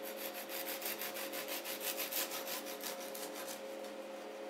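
A long knife sawing back and forth through a baked lemon drizzle loaf cake, slicing off its uneven lower part: a quick rasping stroke repeated several times a second, fading out about three and a half seconds in.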